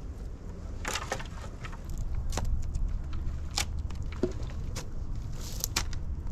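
Dry twigs, branches and leaves crackling and snapping as they are handled, with a handful of sharp snaps scattered through, over a steady low rumble.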